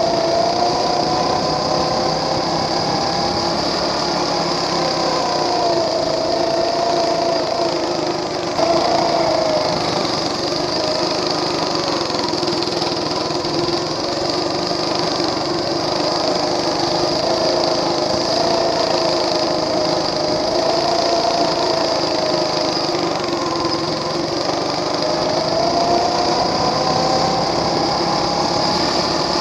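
Small engine of a motorised wagon go-kart running under load, its pitch rising and falling over and over as the throttle is worked.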